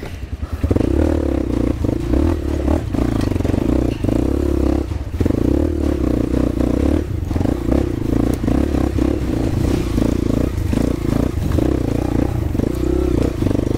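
Dirt bike engine pulling under throttle up a rocky trail, the throttle opening about a second in and easing briefly around five seconds, with rocks and ruts clattering under the tyres.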